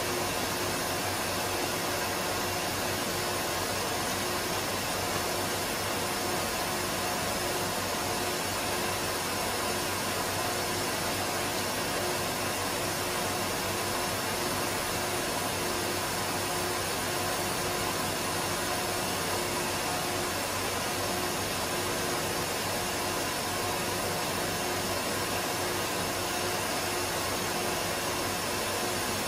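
Steady, unchanging fan-like whirr and hiss with faint steady hums, as from the cooling fan of a running cryolipolysis slimming machine.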